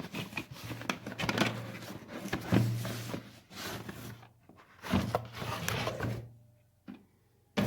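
Cardboard box being opened and its packaging handled: irregular rustling, scraping and light knocks that stop about six seconds in.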